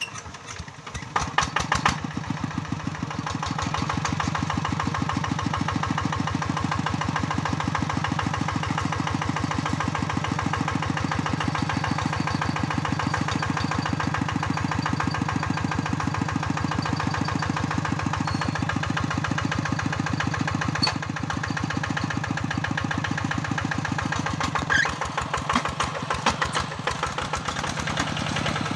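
The single-cylinder diesel engine of a two-wheel hand tractor speeds up about a second in, then runs steadily with a fast, even chugging.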